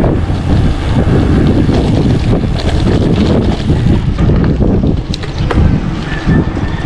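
Wind buffeting the microphone of a camera on a moving bicycle: a loud, dense rumble, with a couple of sharp clicks about five seconds in.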